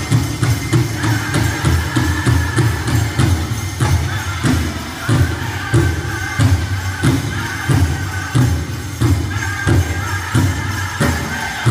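Powwow drum group singing a chicken dance song in high voices over a big drum, struck in unison about twice a second.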